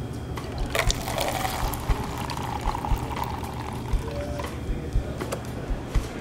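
Liquid pumped from a pump-action airpot into a paper cup. A click about a second in is followed by a pour, rising in pitch as the cup fills, that runs for a couple of seconds and then tails off.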